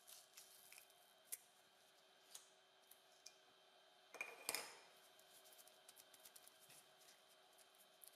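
Faint handling noises of a circuit board and glass display being worked in a PCB holder: scattered light clicks and taps, with a brief louder scrape a little past the middle.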